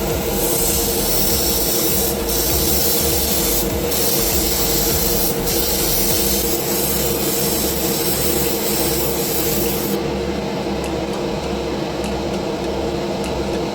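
A small motorised hobby tool running steadily: a loud hiss over a steady motor hum. The highest part of the hiss falls away about ten seconds in.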